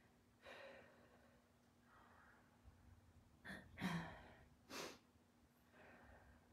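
A woman breathing hard while holding a wall sit: a handful of short, forceful exhalations, the loudest a little past the middle, over a faint steady hum.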